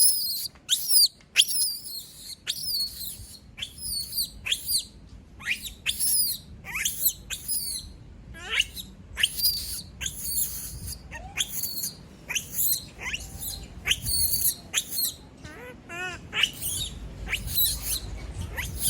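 Monkey screaming over and over, short shrill cries that each slide down in pitch, about one or two a second, with a wavering cry near the end: distress calls at being left alone and separated from its companion.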